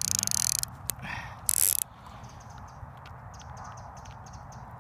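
Fishing reel being worked against a hooked carp, ticking lightly about four times a second through the second half, after two short loud rasping bursts in the first two seconds.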